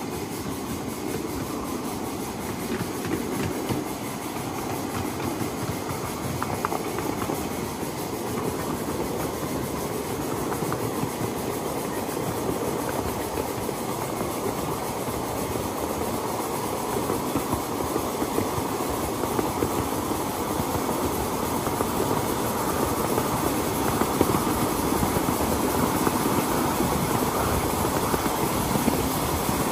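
A 1/8-scale coal-fired live steam train running on its track: steady clatter of wheels over the rails with some hiss, growing louder toward the end.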